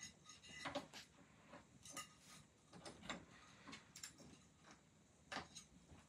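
Faint, irregular clicks and taps from a cockatoo's beak and feet on the plastic base of an office chair as it clambers around it, the loudest about a second in.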